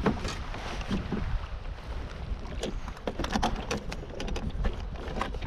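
Wind rumbling on the microphone in an open boat, with scattered light clicks and knocks as a caught perch is handled on a fish measuring board.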